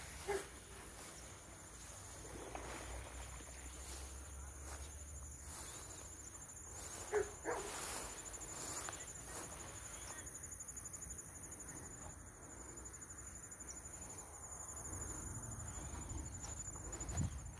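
Insects trilling steadily in high, even tones, with a short knock just after the start and two more close together around seven seconds in.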